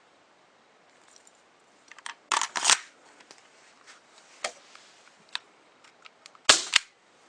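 Sharp clicks and clacks from handling a KWC Jericho 941 CO2 airsoft pistol: a quick cluster a couple of seconds in, a few single clicks, and the loudest double clack near the end.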